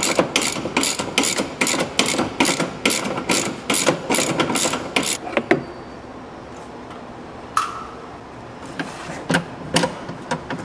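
Hand ratchet clicking in quick even strokes, about three a second, as fasteners are backed out of the seat belt rack. It pauses partway through, then a few more clicks come near the end.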